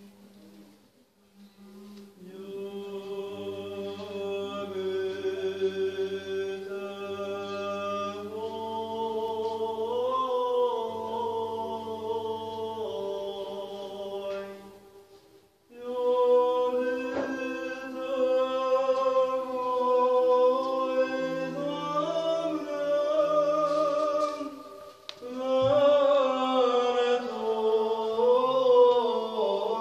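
Church choir singing Orthodox chant in long phrases of held chords, several voices moving together, with a short break about halfway through and another near the end.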